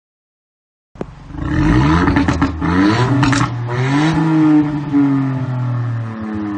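Ford Fiesta ST Mk8's 1.5-litre turbocharged three-cylinder engine revved while stationary, through an aftermarket valved exhaust with the valve open and the particulate filter deleted. It starts suddenly about a second in, and the pitch rises and falls with several blips of the throttle.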